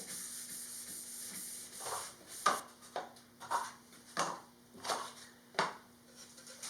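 A rag wiping paint thinner over a freshly sanded mahogany countertop, a series of short back-and-forth rubbing strokes about two-thirds of a second apart, starting about two seconds in.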